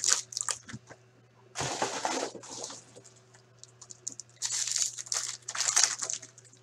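Foil wrapper of a 2018-19 Upper Deck Engrained hockey card pack being torn open and crinkled by hand: two bursts of rustling, about one and a half seconds in and again from about four and a half seconds.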